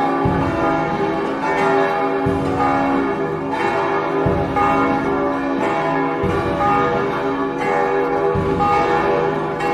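Church bells ringing, several bells struck over and over so that their tones overlap and ring on continuously, with a deep bell striking about every two seconds.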